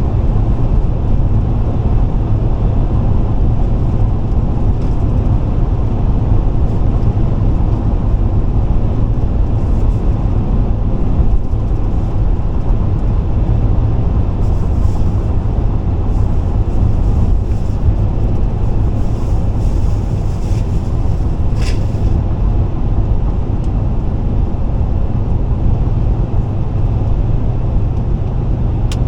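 Steady road and engine rumble inside a car's cabin while driving on the interstate.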